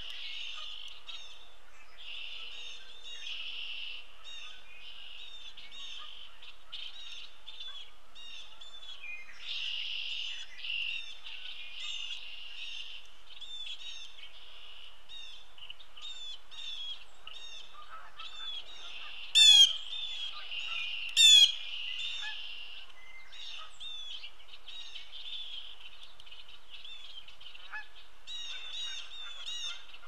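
Many wild birds calling in a steady outdoor chorus of short, repeated calls, with two loud, harsh calls a couple of seconds apart past the middle.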